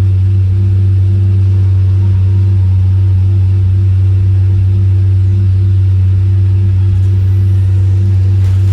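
Lamborghini Murcielago V12 engine idling, a steady low drone with no revving.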